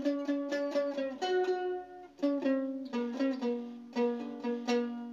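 Bowl-back mandolin played solo, picking a Turkish folk-song melody in single plucked notes, each with a sharp attack and a ringing decay.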